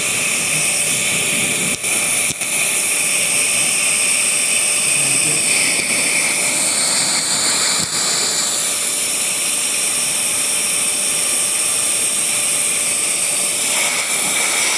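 Vacuum cleaner running steadily, its motor giving a loud whine over a rush of sucked air, with a few momentary dips in level.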